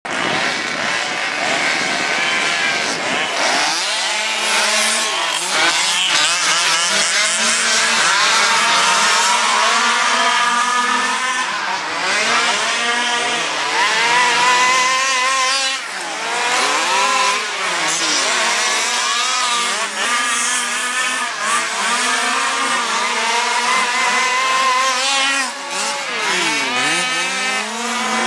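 Several petrol-powered RC race cars with small two-stroke engines revving hard and easing off as they race. Their pitches rise and fall, overlapping one another.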